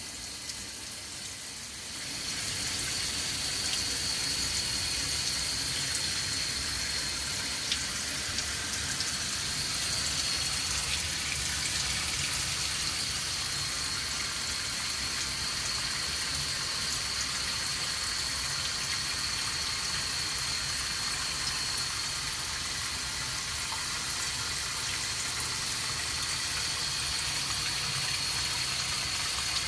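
Water running steadily from a kitchen sink faucet, turned on about two seconds in, with a thin steady high whine over the rush of the stream.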